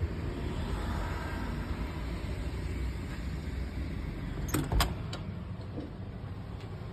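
Low, muffled rumble of a phone's microphone being handled while held close against a surface, with two sharp clicks about four and a half seconds in.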